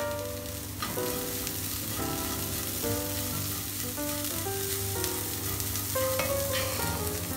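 Moong sprout and vegetable stir-fry sizzling steadily in a hot non-stick frying pan as a wooden spoon stirs it, with soft scraping of the spoon through the food.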